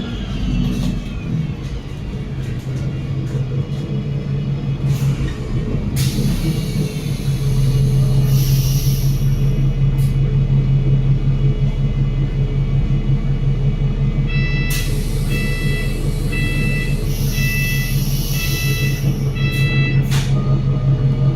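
Cummins L9 six-cylinder diesel of an Enviro500 MMC double-decker bus, heard from inside the cabin: a steady low drone that grows louder about seven seconds in. Bursts of air hiss come and go, and in the second half there is a run of about six short high beeps, roughly a second apart.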